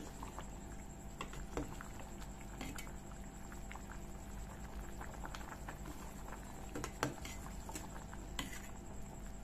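Fish and potato curry bubbling in a steel pot, with a few light clinks as a metal ladle stirs it gently.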